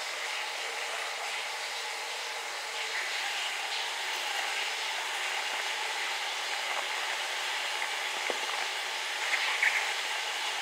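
A steady hiss fills the background, with a few soft rustles and crunches as powdery cornstarch chunks are poured and handled in a bowl, the loudest a little before the end.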